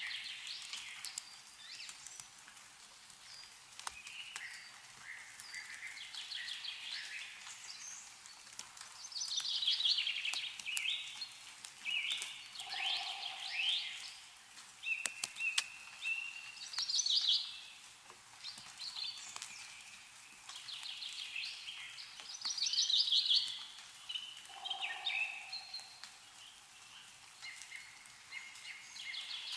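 Several songbirds singing and calling over one another in short warbling and trilled phrases, with a lower call twice. Scattered sharp ticks of meltwater dripping from snow-laden branches.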